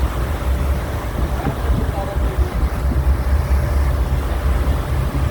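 Small motor boat under way: a steady low rumble of the engine and passing wind and water, with faint voices in the background.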